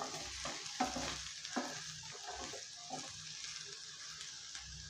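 Diced potatoes sizzling softly in oil in a non-stick frying pan as a wooden spatula turns them, with irregular soft scrapes and knocks of the spatula against the pan. The potatoes are frying until lightly browned.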